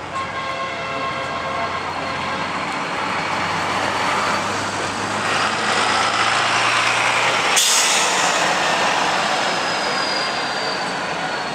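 Leyland National single-deck bus driving past and pulling away, its engine note growing louder. About two-thirds in comes a sudden sharp hiss of air as the low engine note drops, then the engine and a high whine that slowly falls in pitch as the bus moves off.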